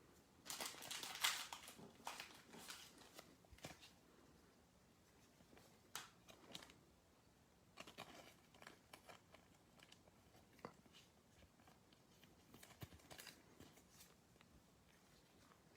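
Faint, scattered crinkling and light clicks of trading cards and plastic packaging being handled, in short bursts with quiet gaps between.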